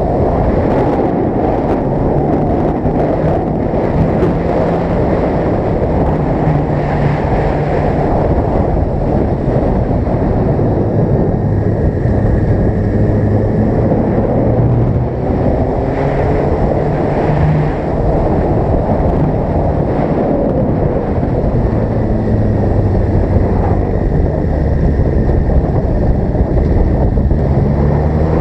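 Suzuki GSX-R sport motorcycle ridden at speed, with heavy wind noise on the microphone over the engine note. The engine's pitch steps up and down with throttle and gear changes and rises as it revs up near the end.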